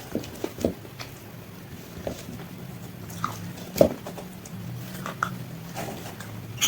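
Someone biting into and chewing KFC spicy fried chicken: scattered crisp crunches and mouth sounds, the loudest bite about four seconds in, over a steady low hum.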